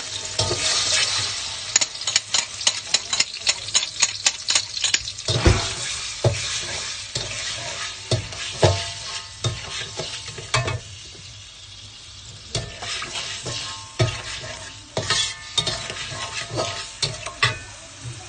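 Blended chili, onion and garlic paste sizzling in hot oil in a wok, stirred with a spatula that scrapes and clicks against the pan in quick strokes, thickest in the first few seconds. The sizzle eases somewhat past the middle as the paste fries.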